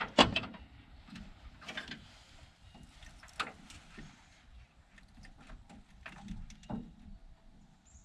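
Scattered light clicks and knocks from handling tools and ignition wiring, over a faint steady hum.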